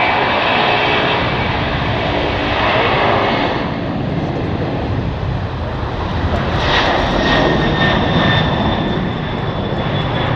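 Twin jet engines of a Boeing 767-300ER freighter running loud and steady, with a high whining tone over the engine noise.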